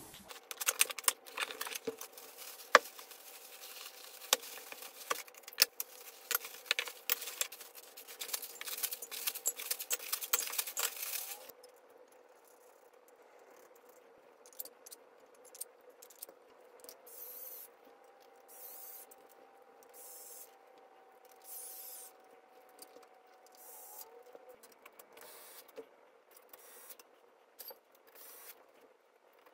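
Flat-pack nightstand parts and loose metal hardware being handled, a dense run of clicks and rattles for about the first eleven seconds. After that come quieter scattered clicks and scrapes as a hand screwdriver turns bolts into the metal frame.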